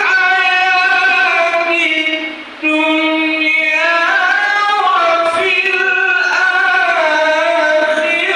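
A single voice chanting Qur'anic recitation in a melodic style, holding long drawn-out notes with slow ornamented glides, with a short breath pause about two and a half seconds in.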